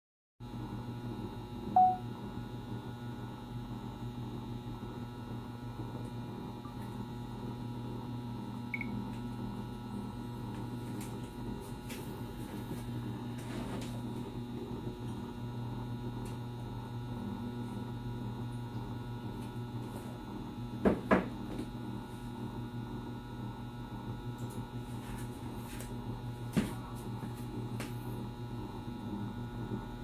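Steady low electrical hum. A short loud beep sounds about two seconds in, and a quick double click comes around the two-thirds mark, with a single click later.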